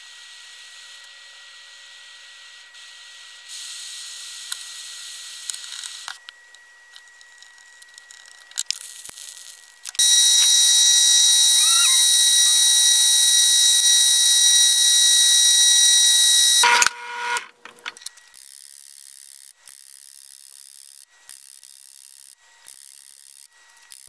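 A benchtop drill press runs with a steady high whine while drilling into a small metal quick-release fitting clamped in a vise. It starts suddenly about ten seconds in, stops about seven seconds later, and is the loudest sound. Before it there is a softer steady hiss of a torch flame heating the fitting for soldering; after it come quieter clicks and knocks.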